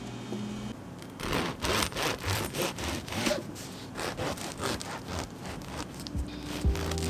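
Bread knife sawing lengthwise through a crusty, flour-dusted loaf in quick back-and-forth strokes, about three a second, the crust crackling under the blade. Soft music fades out just before the cutting starts and comes back near the end.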